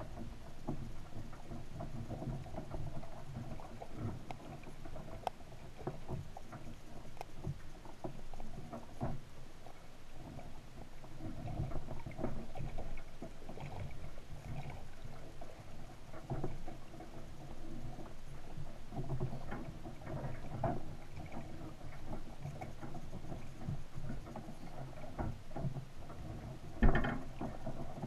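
Underwater sound heard through a camera housing on a crab trap on the sea floor: a steady low, muffled hum with scattered clicks and small knocks, and one louder thump near the end.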